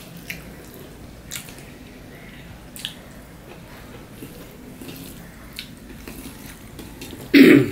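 Close-up eating sounds: wet mouth clicks and smacks at irregular intervals as rice and fried vegetables are chewed and mixed by hand on a steel plate. A short, loud burst comes near the end.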